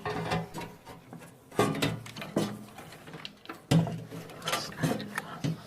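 Irregular clicks, knocks and rattles of a hard drive and hardware being handled and fitted into a computer case's drive bay, with a few sharper knocks about a second and a half in and again near four seconds.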